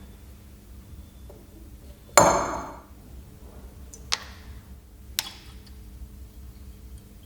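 Metal tool work: a loud clank with a short ring about two seconds in, then two sharper metallic taps about a second apart, over a faint steady hum.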